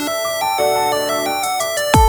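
Lofi background music: a bright melodic keyboard line stepping from note to note with no drums, until a deep kick drum and the beat come back in right at the very end.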